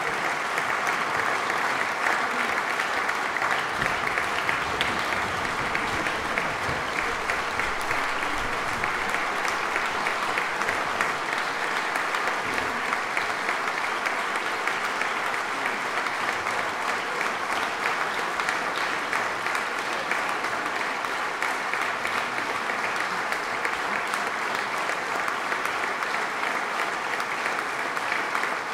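Large audience applauding steadily, a dense even clapping that neither builds nor fades.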